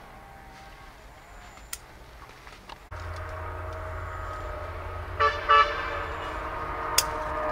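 A motor vehicle's engine hums steadily, starting abruptly about three seconds in, and its horn gives two short toots about two seconds later. A sharp click comes near the end.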